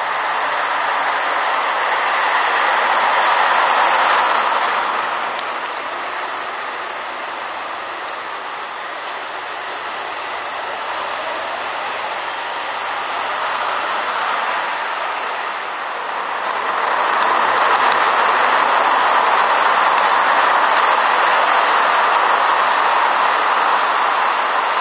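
Steady street-noise hiss with no clear single event. It swells twice, about two to five seconds in and again from about seventeen seconds on.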